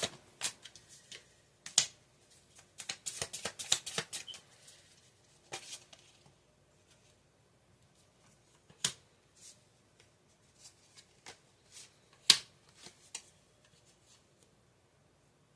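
Tarot cards being handled and shuffled: a quick flurry of papery flicks and clicks for the first four seconds or so, then three single sharp card snaps spaced a few seconds apart.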